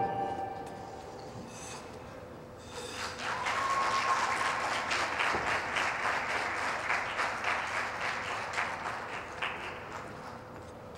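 Applause from a small crowd of spectators, starting about three seconds in after the last note of the skating music dies away, then thinning out near the end.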